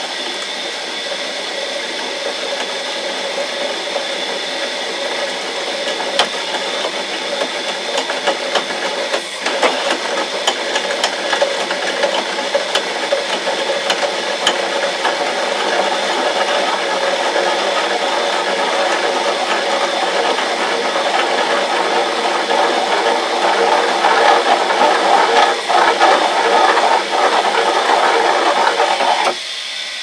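Drill press driven by an automatic washing-machine motor at low speed, a 16 mm twist drill cutting into steel plate: steady motor whine under the grinding, crackling cut of the bit as the steel chips curl off. The motor is labouring under the load at these low revs but holding its speed. The cutting grows louder toward the end and cuts off abruptly about a second before the end.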